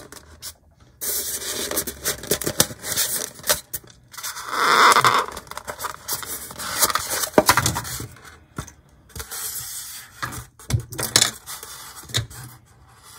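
Styrofoam packaging insert rubbing and scraping as an HO-scale model locomotive is pushed up and out of it by hand, with irregular rustles and small clicks. The loudest stretch is a noisy rush about four to five seconds in.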